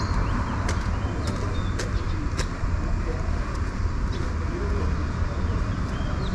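Outdoor ambience: a steady low rumble with birds chirping, and a few sharp clicks about half a second apart in the first half.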